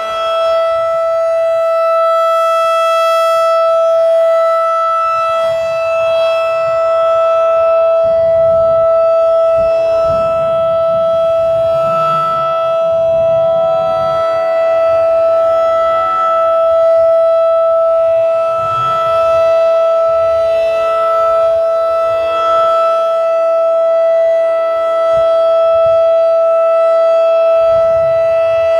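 Federal Signal 2001-SRN rotating outdoor warning siren sounding a steady tone at full pitch during a test, its loudness dipping and swelling slightly. Other steady siren tones from the same warning system sound underneath it.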